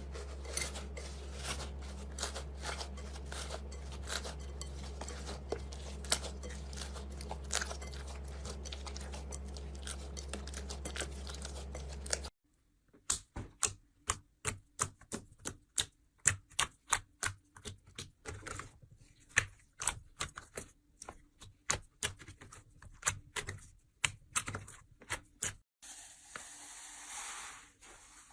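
Slime being squeezed and worked by hand: a dense run of small clicks and crackles over a low hum, then, after a cut about twelve seconds in, sparser and sharper pops and crackles, with a short hiss near the end.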